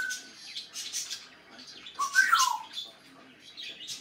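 African grey parrot vocalizing: a run of short scratchy chirps and clicks, with a whistle about halfway through that rises and then slides down.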